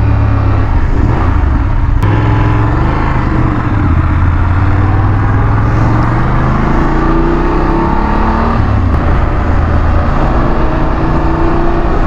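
BMW F 850 GS parallel-twin engine running while the motorcycle is ridden on the road. The engine note climbs in pitch a few times as the bike speeds up.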